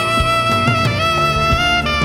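Background music: a jazz-style melody of held notes stepping up and down in pitch, over drum hits.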